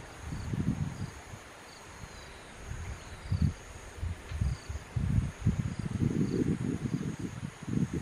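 Wind buffeting the microphone in uneven, low rumbling gusts that grow stronger in the second half. Under it runs a faint, steady, high-pitched insect drone with small repeated chirps.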